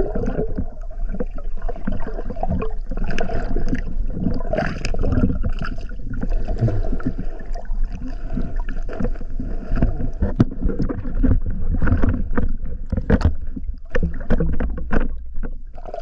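Muffled water noise heard through an underwater camera housing: dense sloshing and bubbling with many irregular sharp clicks and knocks from a diver swimming and handling a spear.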